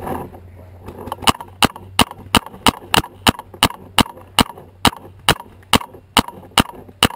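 A brief rustle at the start, then a paintball marker firing a steady string of shots, about three a second, beginning about a second in.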